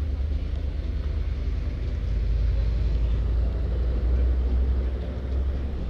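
Low, steady rumble of wind buffeting the microphone of a camera moving along a street, over faint traffic noise, a little louder in the middle.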